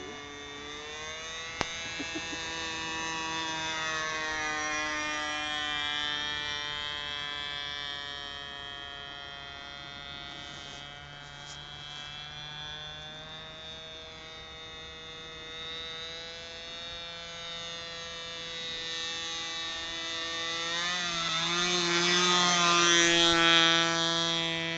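Radio-controlled model airplane's motor and propeller whining steadily in flight. It grows louder toward the end as the plane comes closer, its pitch sliding as it passes.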